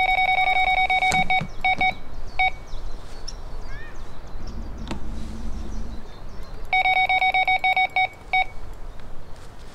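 Electronic carp bite alarm on a rod pod sounding a run. It gives a rapid string of high, identical beeps for about a second and a half, two short bursts, then another long string of beeps about seven seconds in. The sign of a fish taking the bait and pulling line off the reel.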